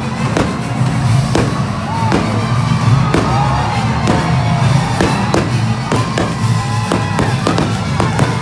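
Fireworks bursting in quick succession, many sharp bangs a second, over music that plays throughout.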